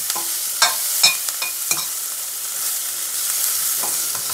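A slotted steel spatula clinks and scrapes against a stainless steel pan as chopped onions are stirred, over a steady sizzle of frying. The clinks come several times in the first two seconds, then mostly the sizzle remains, with one more clink near the end.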